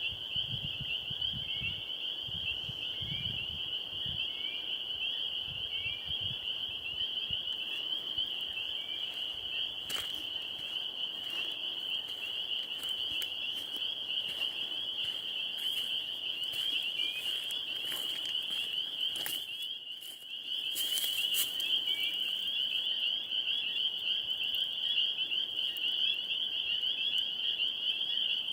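Dense, continuous chorus of many small animals calling at one high pitch, with a short rising chirp about once a second during the first several seconds. A few sharp clicks come about a third of the way in and again around two-thirds in, and the chorus grows louder from then on.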